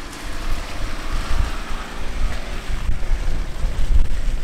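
Off-road SUV's engine pulling under load as it climbs a muddy slope, a deep steady rumble that swells in at the start.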